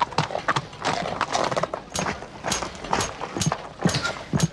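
Cartoon sound effects of a horse's hooves clopping and a cowboy's boots stepping on boards: a run of sharp knocks, falling into an even pace of about two a second in the second half, some with a light metallic ring.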